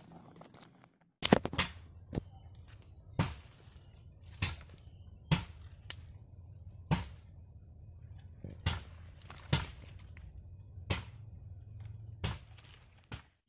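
A blade chopping at bamboo: about a dozen sharp strikes, roughly one a second, over a faint low rumble.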